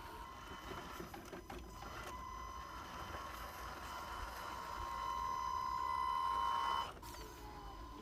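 A small electric motor whining at a steady pitch. It grows louder over a couple of seconds, then cuts off suddenly about a second before the end.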